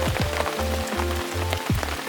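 Background music with a pulsing bass beat, held notes and repeated falling swoops, over the steady hiss and patter of heavy rain.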